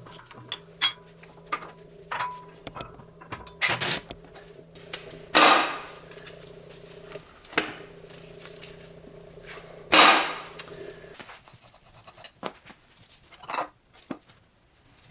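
Metal clinking and knocking from work on a seized motorcycle rear axle and eccentric hub, with two loud strikes about five and ten seconds in. The axle is stuck because a wheel bearing race has seized onto the shaft.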